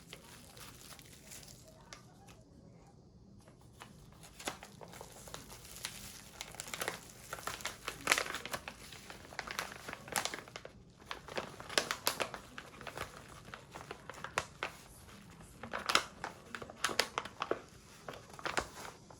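Irregular crinkling and rustling, as of something being handled, in a small room. It is faint at first and gets busier from about four seconds in.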